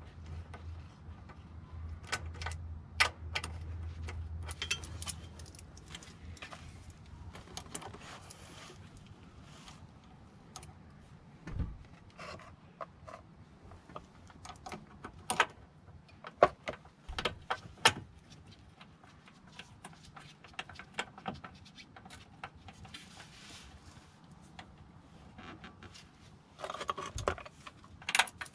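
Metal hand tools and parts clinking and knocking at irregular intervals, with a low hum for the first five seconds or so.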